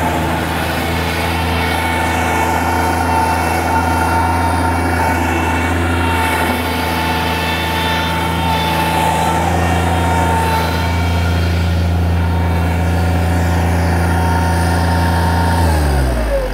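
Bobcat MT85 mini track loader's diesel engine running steadily at a constant speed, with a steady high whine over it, while the machine is stuck on a steep, wet bank. Near the end the engine is shut off and winds down, falling in pitch.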